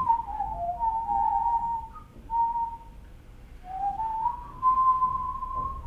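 A man whistling a slow tune, one clear note at a time, in phrases broken by a short pause about two seconds in and a longer one around the middle.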